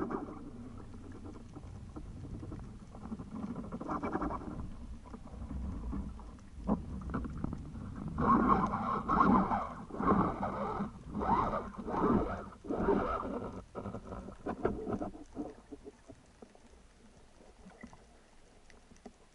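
Water splashing and sloshing around a spearfisher at the surface as he hauls in a speared fish on the spear's line. There is a run of loud splashy bursts about once a second in the middle, dying away near the end.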